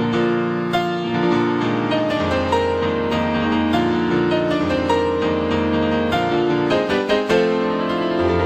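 Background piano music: held chords and a slow-moving melody over a sustained bass.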